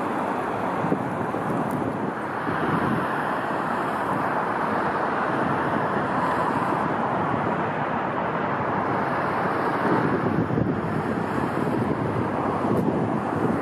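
Steady rushing roar of a distant jet airliner's engines, with wind buffeting the microphone.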